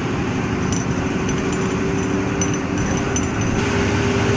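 Bus engine running with a steady hum, under road and rumble noise heard from inside the moving bus.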